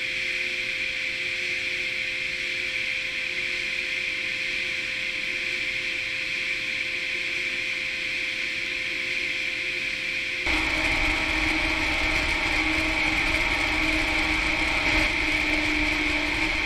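Geotechnical centrifuge running in flight: a steady mechanical whir and rushing hiss with a constant hum. About ten seconds in it abruptly gets louder, with a deeper rumble and new humming tones.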